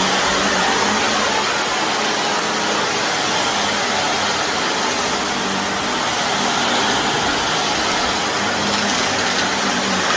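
Shark vacuum cleaner running steadily over carpet: a constant airy rush with a low motor hum underneath.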